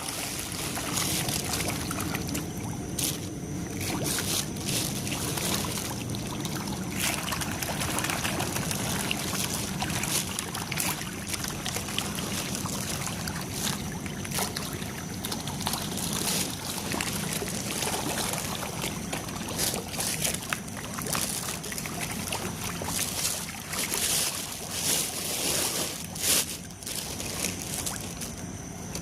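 Steady trickling and splashing of water, with many scattered sharp splashes.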